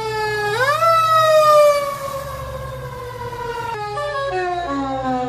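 Fire truck siren wailing: its pitch sweeps up sharply just over half a second in, then sinks slowly for about three seconds. From almost four seconds in, the tone jumps between short stepped pitches, over a steady low rumble.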